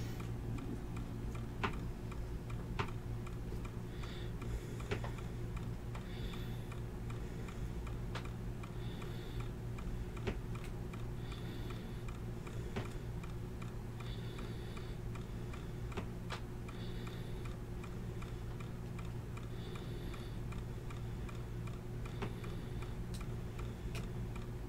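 Steady low electrical hum with scattered faint clicks and short high chirps every second or two.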